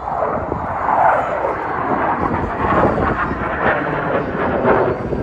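Engines of a four-ship aerobatic jet formation climbing overhead: a loud, steady jet rush.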